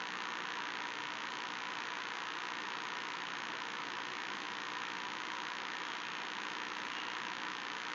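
Steady, even hiss with no distinct events standing out; no hiccups are heard.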